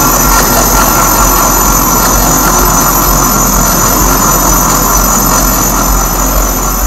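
Loud live experimental electronic noise music: a dense, steady wall of noise with a heavy low hum underneath and steady high-pitched tones on top.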